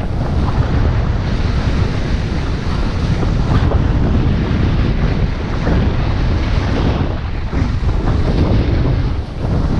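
Wind buffeting the microphone of a camera worn by a downhill skier, with the hiss and scrape of skis on groomed, packed snow.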